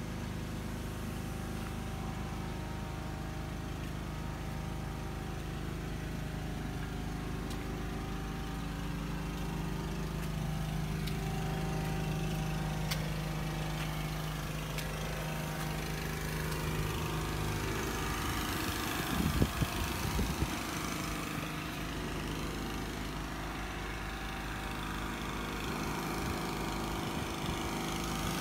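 An engine running steadily with an even, unchanging hum, with a few short knocks about 19 to 20 seconds in.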